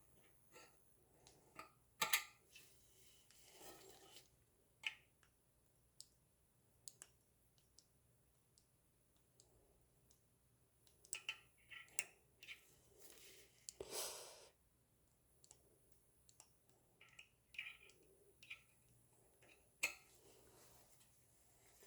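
Quiet handling of Shimano WH-9000 front hub parts during greasing: scattered small clicks and taps of metal parts, with a short swish about fourteen seconds in.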